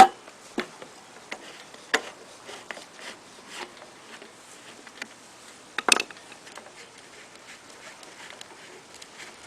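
Scattered clicks and taps of small tools and metal parts being handled on a lawnmower engine, with a sharp click at the very start and a louder short clatter about six seconds in.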